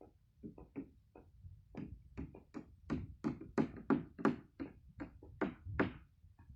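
A hand tool striking repeatedly on building work: sharp knocks, about two to three a second, faint at first, then louder through the middle, and stopping near the end.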